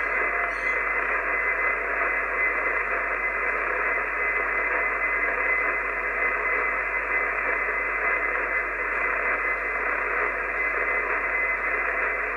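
Icom IC-751 HF transceiver hissing with steady static on an open channel between transmissions, the noise limited to a narrow voice band, with a thin steady whistle in it.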